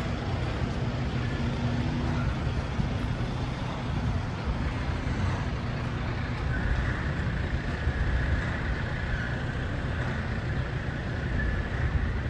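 Steady road traffic from passing cars, heard at street level.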